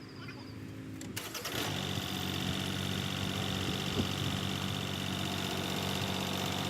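An engine running, which gets suddenly louder about a second and a half in and then runs steadily.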